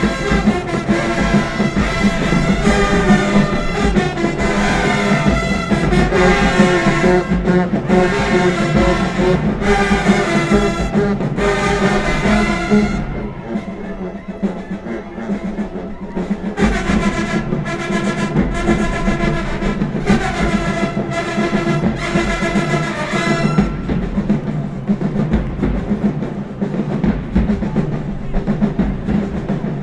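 High school marching band playing in the stands: a brass section with drums. The horns break off twice, about thirteen seconds in and again near the end, leaving quieter stretches carried mostly by the percussion.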